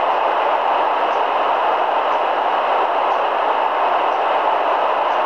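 Steady static hiss from a Grundig G4000A shortwave receiver tuned to 27.820 MHz in the 11-metre CB band: open-channel noise with no station transmitting.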